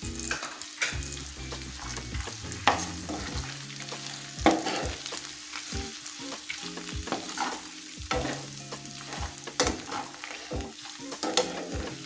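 Onion, dried red chillies and garlic sautéing in hot oil in a pan, sizzling while a spatula stirs them. The spatula knocks and scrapes against the pan about six times at uneven intervals, loudest about halfway through.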